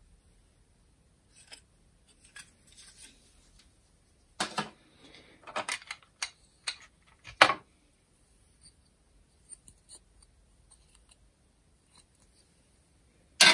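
Hard plastic parts of a Makita DCF203 cordless fan's battery housing being handled and unclipped: scattered clicks and short scrapes, with the sharpest click about seven and a half seconds in and another loud one at the very end.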